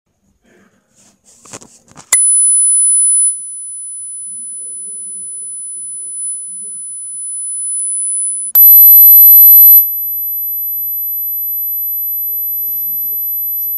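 Phone speaker playing steady high-pitched tones from an anti-rat repeller app: a 10 kHz tone starts about two seconds in, then switches to a higher 12 kHz tone about eight and a half seconds in. Each tone starts loud and drops in level after about a second. Faint handling noise comes just before the first tone.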